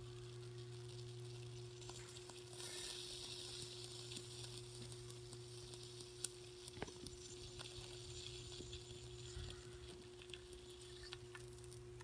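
Microwave oven transformer humming steadily under a dead short through its single-turn secondary, while the iron piece clamped across it sizzles and crackles as it melts and boils. The sizzling grows stronger about two and a half seconds in, with scattered sharp pops from sparks, the sharpest a little past halfway.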